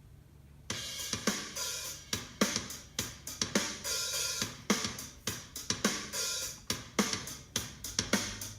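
Drum-kit music (hi-hat, cymbals, snare, kick) played through a 2016 MacBook Pro's built-in speakers, starting about a second in. The owner says the left speaker went quieter and lost its high frequencies after popping.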